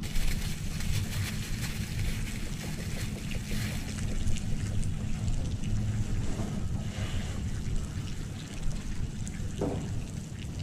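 Wind buffeting the microphone over a steady low rumble by the water, with crackling from a plastic bag being handled, busiest in the first few seconds.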